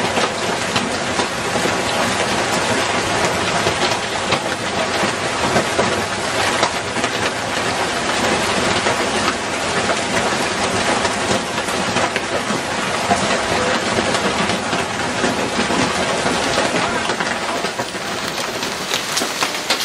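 Heavy, wind-driven hail pelting down: a loud, steady din of countless small hits.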